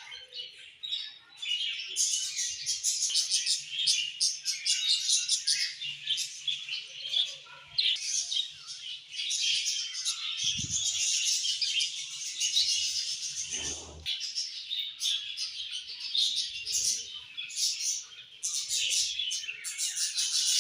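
Several budgerigars chattering and warbling together: a dense, continuous run of rapid high chirps and clicks. A few soft low thumps now and then.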